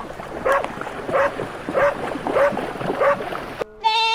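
A dog barking in a steady rhythm, a little under two barks a second. Near the end it cuts off abruptly and a bleat begins.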